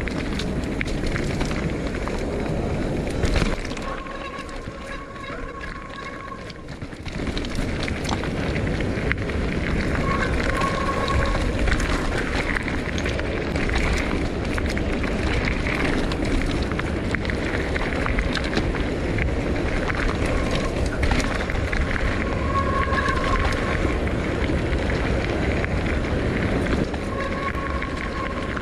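Mountain bike descending a rough dirt trail: continuous tyre and frame rattle over rocks and roots, with a steady high buzz that comes and goes several times. The noise drops for a few seconds about four seconds in, then picks up again.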